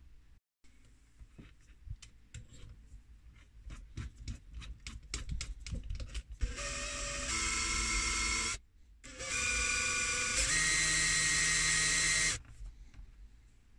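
DeWalt cordless drill spinning an electric motor armature clamped in its chuck, its other end held in an abrasive pad. It runs twice for a few seconds with a short stop between, and each run steps up in pitch partway through. Before that comes a quickening series of sharp clicks as the keyless chuck is tightened.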